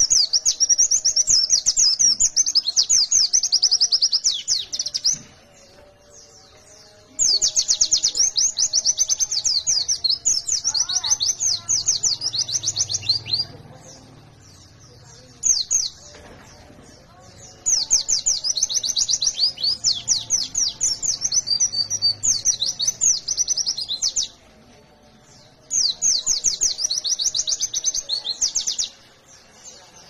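White-eye (pleci) singing long bursts of rapid, high chirping notes, several seconds at a time with short pauses between: the fast, dense 'nembak' style of song.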